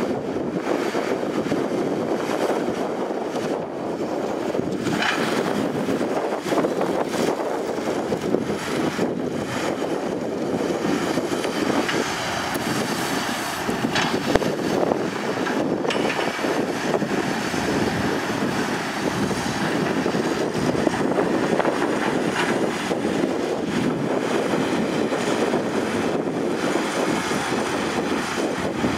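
A Komatsu PC210 hydraulic excavator's diesel engine running steadily under load as it digs and loads soil, with a few sharp knocks along the way.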